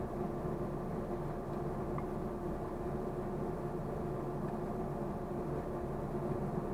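Steady machine hum with several held tones: an electric motor running.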